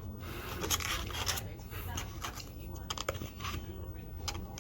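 Close-up eating sounds: chewing and handling of food, a run of short crackly clicks and scrapes, over a steady low hum.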